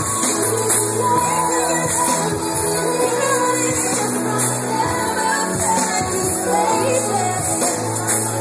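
Pop song with a sung vocal and a steady bass pulse played loud over a club sound system, with the crowd shouting along.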